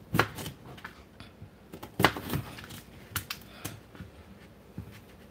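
Crinkle-cut wavy knife chopping a raw potato into strips, giving several sharp knocks as the blade goes through onto the cutting surface. The loudest comes about two seconds in.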